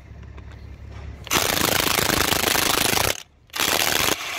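Parkside PASSP 20 Li A1 cordless brushless impact wrench, set to 400 Nm, hammering on a rusted bolt. A long burst of hammering starts about a second in, there is a brief pause, then a second burst that drops to a lower, steadier level near the end. At this setting the bolt comes loose with no trouble.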